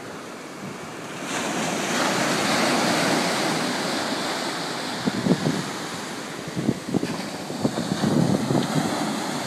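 Ocean surf: small waves breaking and washing up the sand, the rush of foam swelling about a second in. Wind buffets the microphone in uneven low thumps through the second half.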